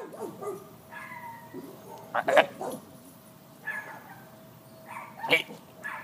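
A dog barking and yipping in short calls: a yip about a second in, a loud double bark about two seconds in, another call near four seconds, and a second loud double bark near the end.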